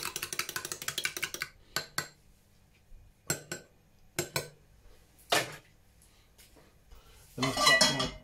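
Eggs being beaten in a bowl with a utensil: a fast, even clicking of metal on the bowl that stops about a second and a half in. After it come a few separate clinks and knocks, and a louder clatter near the end.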